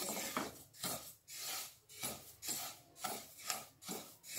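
Wooden spatula stirring sesame seeds dry-roasting in a nonstick kadhai: a rhythmic scraping swish, about two strokes a second, as the seeds are pushed across the pan.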